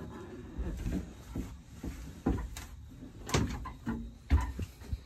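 A few dull knocks and thumps over a low rumble, the loudest about a third of the way in, past halfway and near the end.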